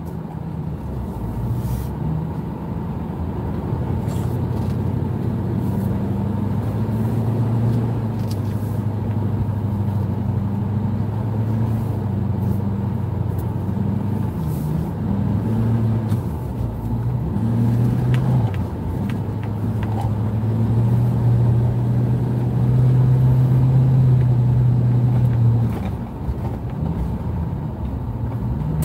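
Pickup truck engine and road noise heard from inside the cab while driving, a steady drone whose pitch dips and rises with speed. It grows loudest in the later part, then eases off sharply near the end.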